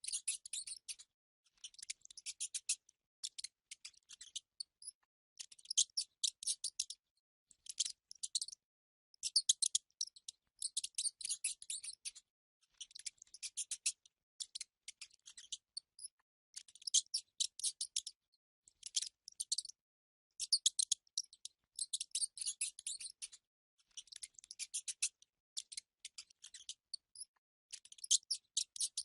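Mice squeaking and chittering in rapid, high-pitched clicking bursts, each run lasting about a second, with short silent gaps between them.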